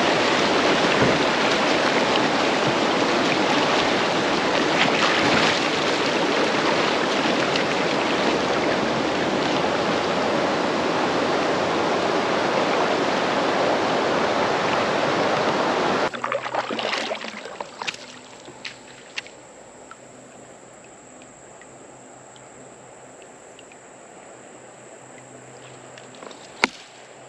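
Rushing creek water, a loud steady wash heard from a kayak on the current. It cuts off suddenly about two-thirds of the way through, leaving quiet running water with a few light clicks and knocks.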